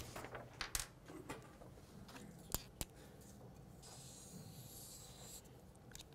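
A pen drawing on a sheet of paper on a desk: a faint scratching hiss lasting about a second and a half, starting about four seconds in, after a few light taps and clicks of handling.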